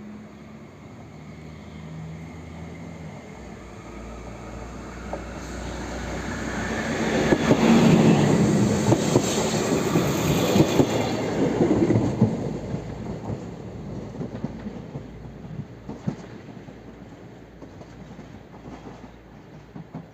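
SA134 diesel railcar passing on departure: engine running and wheels clicking over the rail joints. It grows louder as it approaches, is loudest as it goes by about halfway through, then fades away.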